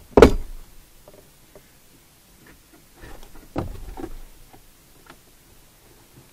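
Plastic interior trim of a car being handled by hand: one sharp knock about a quarter second in, then a few smaller clicks, knocks and rubbing around three to four seconds in.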